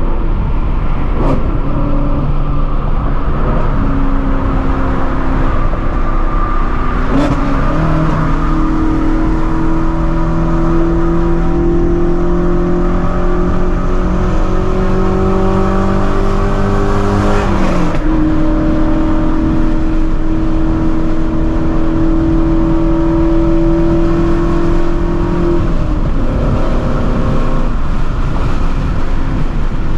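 Straight-piped 2016 Ford Mustang Shelby GT350's 5.2-litre flat-plane-crank V8, fitted with long-tube headers, running loud at highway speed. The exhaust note climbs slowly under light acceleration, drops sharply at a gear change, holds steady, then falls in pitch near the end as the throttle eases.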